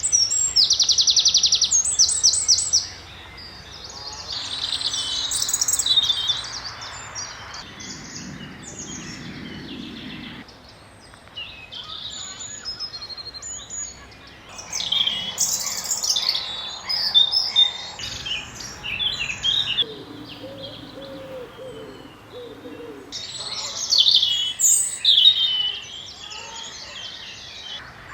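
Several wild birds singing and calling in woodland, with many overlapping high chirps and trills. It opens with a loud, rapid trill of evenly repeated notes. Around two-thirds of the way through comes a lower, stacked call.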